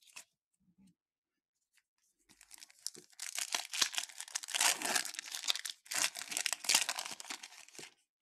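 Foil wrapper of a Topps Chrome Update baseball card pack crinkling and tearing as it is ripped open by hand: a dense crackle that starts about two seconds in and lasts about five seconds.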